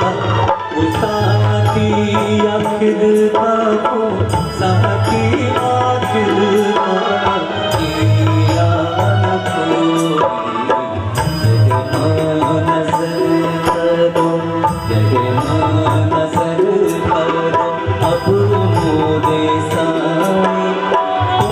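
Live devotional bhajan music: tabla drumming in a steady rhythm under a melody line.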